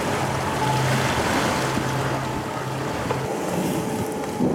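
A fishing boat's engine hums steadily under wind and water noise. The hum stops about three seconds in, leaving the wind and water.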